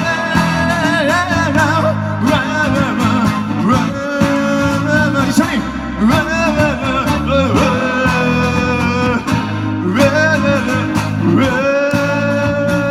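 Live band playing a Japanese pop-rock song: a singer's voice holding and bending long notes over electric guitar, bass and drums.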